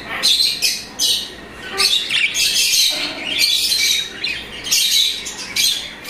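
Caged small parrots chirping and squawking without a break, a run of short high-pitched calls about two a second.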